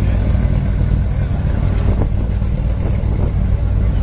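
BMW E36 3 Series race car's engine running steadily at low revs as the car creeps along, a low rumble with no revving.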